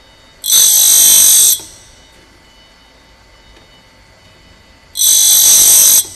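Tool grinder's wheel grinding the cutting edge of a fluted cutter: two loud, high-pitched grinding passes of about a second each, about four seconds apart. A faint steady machine background runs between them.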